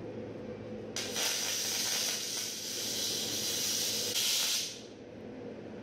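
Welding arc sizzling as a steel plate truss is welded to a Dana 44A axle tube. It starts about a second in, runs steadily for nearly four seconds, and stops abruptly.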